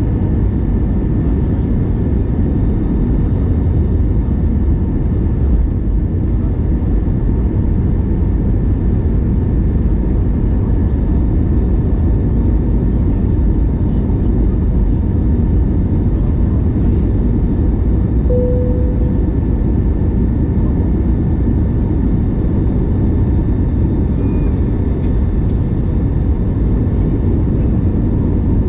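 Steady cabin noise inside an Airbus A321neo airliner in flight: an even low rumble of engines and airflow with faint steady whines above it. A short, single tone sounds once a little past halfway.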